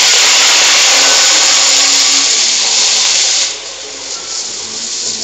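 Chopped spinach sizzling loudly in hot oil just after going into the pot, dying down to a quieter sizzle about three and a half seconds in.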